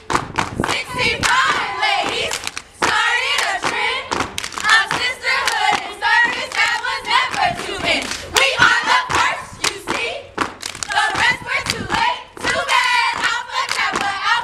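Step team performing in unison: rhythmic stomps of heeled shoes on stone pavers and hand claps, with the group chanting together over the beat.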